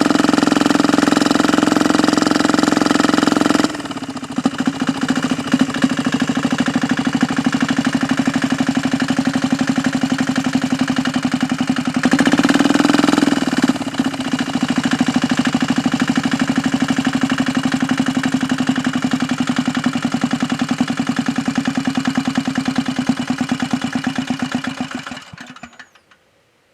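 198 cc single-cylinder diesel engine running fast, dropping to a slower run with separate firing beats audible about four seconds in, changing pitch briefly near the middle, then dying away near the end. The engine is labouring in mud while the clutch burns out.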